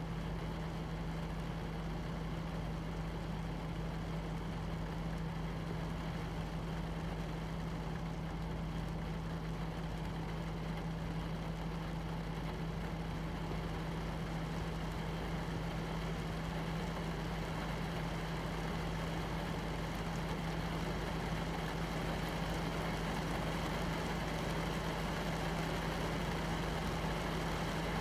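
Rain falling on window glass, a steady hiss that grows heavier through the second half, over a constant low hum.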